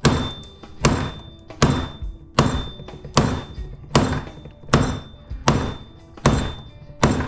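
Steady, rhythmic hammer blows on a steel splitting blade driven into a steel motor stator, about ten strikes a little under a second apart, each with a short metallic ring.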